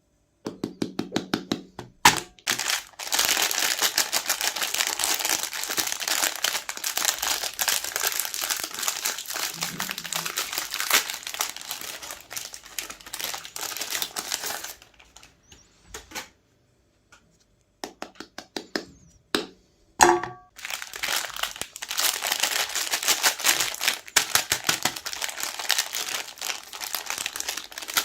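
Meat grinder crunching through a chocolate-coated Magnum ice cream: dense, rapid crackling and crinkling with a few sharp cracks. It stops for a few seconds past the middle, then starts again.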